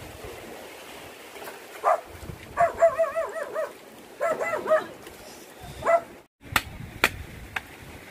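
A dog whining and yelping in several wavering, pitched calls. Near the end a blade starts chopping into a large fish on a wooden plank, a few sharp strikes about half a second apart.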